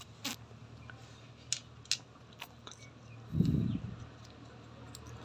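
Faint clicks and clinks of steel motorcycle gearbox gears and shafts being handled, with a short low thud about three and a half seconds in.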